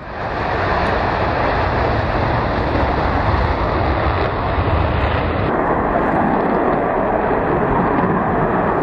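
Loud, steady jet noise of a Concorde on takeoff and climb-out, its four Olympus 593 turbojets at full power with reheat. The sound grows duller about five and a half seconds in.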